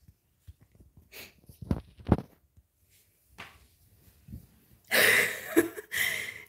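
A couple of soft thumps, then two loud breathy exhalations close to the microphone, about five and six seconds in.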